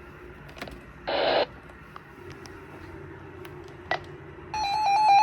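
Weather radio receiver hissing with static between alert messages, with a short burst of static about a second in and a click near four seconds. Near the end, the warbling digital data tones of an EAS header start up, signalling the next alert.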